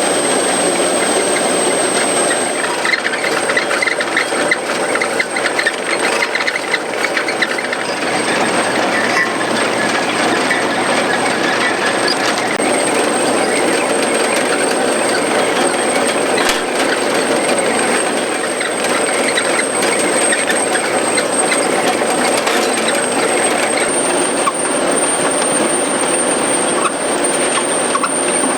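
Dewulf potato harvester working behind a John Deere 6140R tractor: a loud, steady mechanical clatter and metallic rattling over the tractor's running engine.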